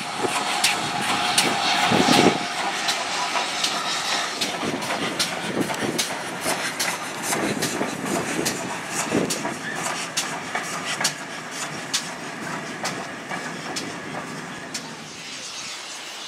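A train of passenger coaches passes at low speed, its wheels clicking and clattering irregularly over the rail joints. A steady tone sounds for about the first two seconds.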